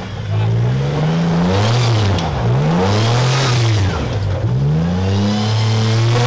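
Lifted Toyota Tacoma pickup's engine revving in repeated surges, the pitch climbing and dropping several times as the truck crawls up over large rock ledges under load.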